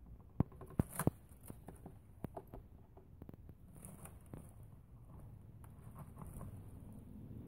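A cat rummaging among pulled weeds inside a plastic tub: a run of sharp clicks and scratchy rustles, loudest about a second in, thinning to faint rustling in the second half.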